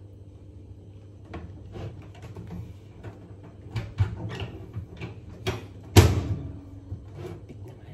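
Kitchen handling noises: a string of light knocks and clicks, then one loud bang about six seconds in, fitting a microwave oven door being shut before it is started. A low steady hum runs underneath.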